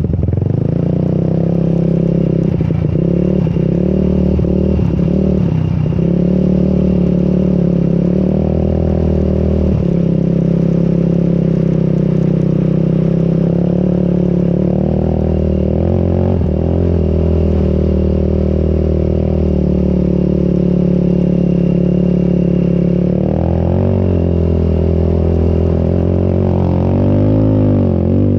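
Quad (ATV) engine running hard through dune sand, its pitch rising and falling with the throttle, with the most revving a few seconds in and near the end.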